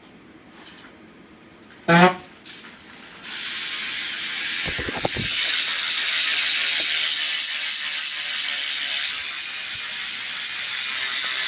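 BMX rear wheel with a Profile Mini cassette hub freewheeling: the pawls click so rapidly that they run together into a steady ratcheting buzz. The buzz starts about three seconds in, shortly after a brief, loud pitched knock.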